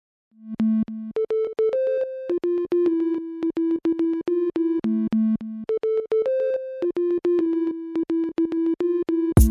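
Background electronic music: a synthesizer melody of short repeated notes in a looping pattern, with drums coming in near the end.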